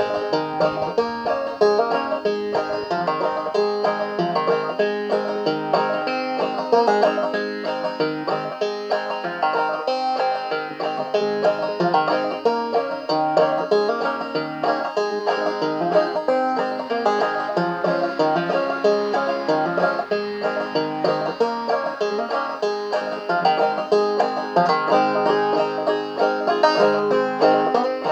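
Solo banjo played in clawhammer style: a steady, unbroken run of plucked notes picking out a tune.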